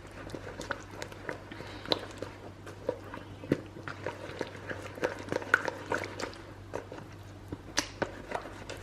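Wet squishing and irregular small clicks of a cauliflower steak being turned in thin chickpea-flour batter.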